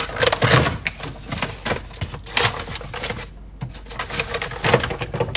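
Crinkling and rustling of a plastic bag being handled, in irregular spurts with a short lull in the middle, mixed with light clatter of items being moved about.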